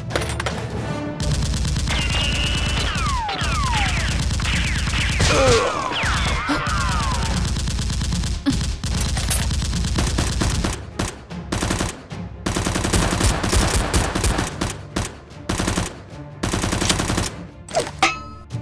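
Rapid automatic gunfire sound effects, long bursts of fast shots, laid over a Nerf blaster fight. Several whistling sweeps fall in pitch in the first third. Music plays underneath.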